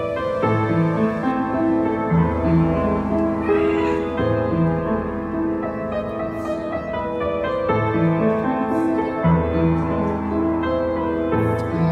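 Background instrumental music, a slow melody of held notes over a repeating bass line.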